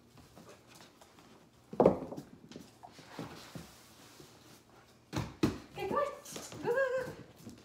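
Two puppies, a Doberman Pinscher and a Bouvier des Flandres, playing on a hardwood floor: a few knocks and scuffles, then near the end two short whining sounds that rise and fall in pitch.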